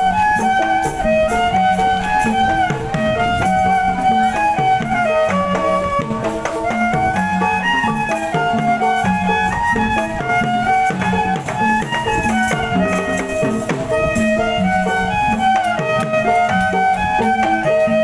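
Traditional music with a lead melody that rises and falls in repeating phrases over steady bass notes and a regular beat.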